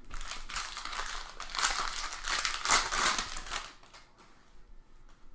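Trading-card pack wrappers crinkling and crumpling as packs are torn open and handled for about three and a half seconds, then fainter handling noise.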